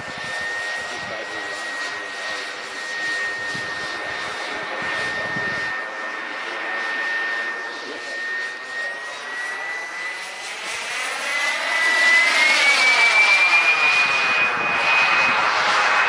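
Homebuilt Wren MW54 model turbine jet engine whining as the RC jet flies overhead. Its high whine holds steady, then rises in pitch and gets louder about three-quarters of the way through, and stays at the higher pitch.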